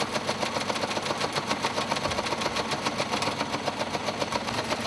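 Electromechanical teleprinter running off punched paper tape, its reader and print mechanism clattering in a rapid, even rhythm: the machine is working.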